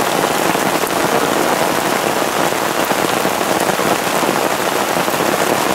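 Steady heavy rain falling on a plastic tarp and grass, with rainwater running off the tarp's corner in a stream into a part-filled plastic bucket.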